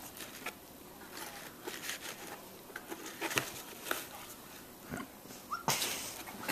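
Bengal cat pawing and scrabbling inside a cardboard shoe box: scattered light taps and scrapes on the cardboard, with a louder rustling scrape near the end as the lid is pushed up from inside.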